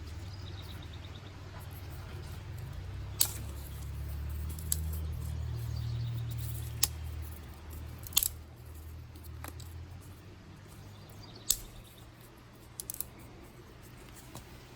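Dry sticks and twigs being snapped by hand: single sharp cracks every second or two, a quick run of small snaps near the end, over a low steady rumble.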